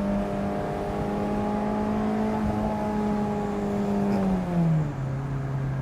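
A 2024 Mazda MX-5 Miata's 2.0-litre four-cylinder engine is running under way through a GoodWin Racing aftermarket exhaust, heard with the top down. The note holds steady, then about four seconds in falls smoothly and settles at a lower pitch.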